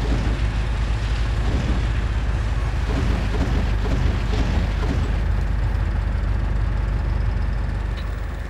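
Vehicle engine running steadily, heard from inside its cab, with most of its energy deep and low.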